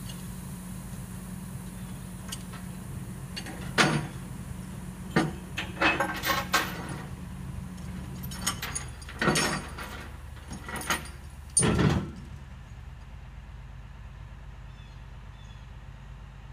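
Heavy machinery's diesel engine running steadily, with a run of loud metallic clanks and bangs between about four and twelve seconds in, after which only the engine hum remains.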